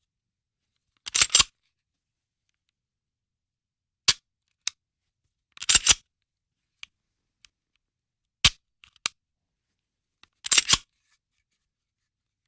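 Handgun action being worked: sharp metallic clicks and clacks, some single and some in quick rattling groups of three or four, like a slide racked, a hammer cocked and a trigger dry-fired. None carries the boom or echo of a live shot.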